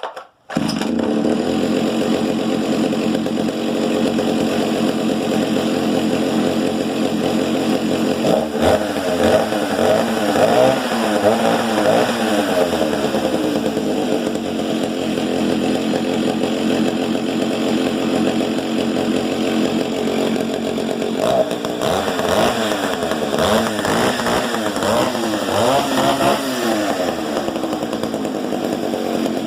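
Stihl 08S 60cc two-stroke chainsaw engine catching about half a second in on a cold start and running steadily. Its speed rises and falls in two spells, about a third of the way in and again past two thirds in.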